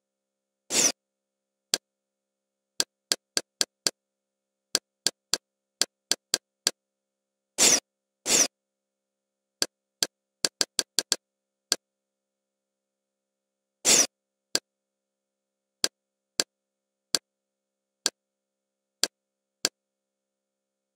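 Kodi's menu navigation sound effects as the focus is moved through the interface: a string of short clicks, at times several a second, with four longer hiss-like bursts, about a second in, twice near the middle, and once about two-thirds through.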